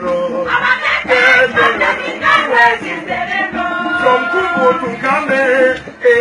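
A group of voices singing together in a traditional dance song.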